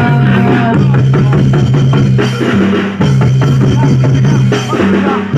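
Loud live jaran dor and reog ensemble music, with drums beating in quick strokes over sustained low notes that shift every second or so.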